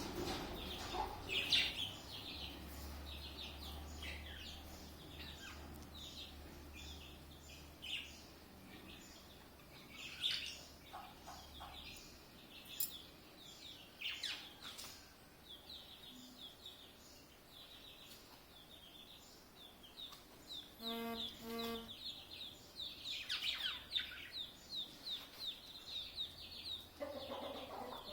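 Small birds chirping and twittering in many short, high, rapid calls, with two brief lower-pitched calls a little past two-thirds of the way through.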